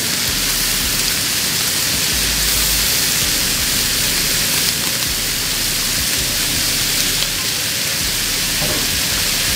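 Diced bacon and a heap of freshly added chopped onions frying on a flat-top griddle: a steady sizzle.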